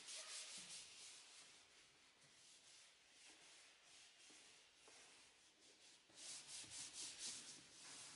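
Faint hand scrubbing on a car's floor carpet, a dry, scratchy rubbing. About six seconds in it turns into a quick run of strokes, roughly five a second.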